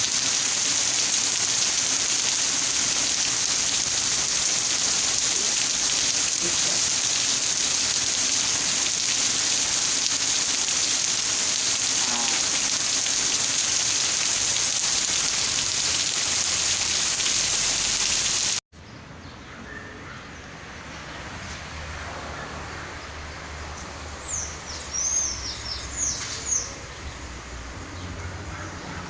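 Steady, heavy rain hiss that cuts off abruptly about two-thirds of the way through, giving way to quieter outdoor ambience with a few short bird chirps.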